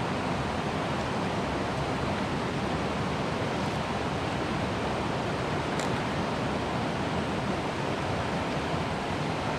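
Steady rush of a shallow river flowing over a rocky bed, an even hiss with no breaks.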